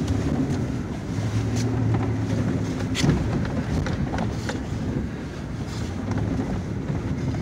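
Four-wheel-drive truck's engine running under load, heard from inside the cab while it drives through deep, rutted snow, its pitch shifting as it works. Several knocks and jolts from the truck bumping over the ruts, the loudest about three seconds in.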